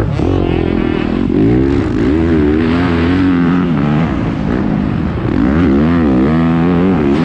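Dirt bike engine being ridden hard, its pitch repeatedly rising under throttle and falling as the rider backs off through the turns, over a rushing noise.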